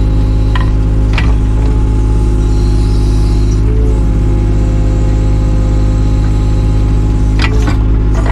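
Takeuchi TB216 mini excavator's diesel engine running steadily under working revs, with a few sharp knocks about a second in and again near the end.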